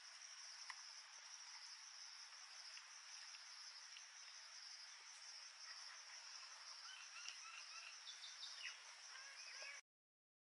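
Faint, steady chirring of insects such as crickets, with a few short high chirps near the end. It cuts off suddenly shortly before the end.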